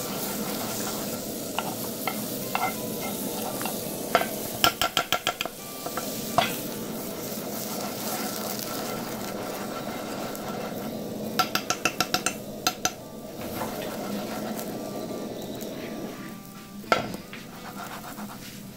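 Burger bun halves sizzling in margarine in a hot non-stick frying pan on a gas burner. The pan is shaken twice, and each time it rattles quickly against the burner grate with a run of sharp clicks. There are also a couple of single knocks.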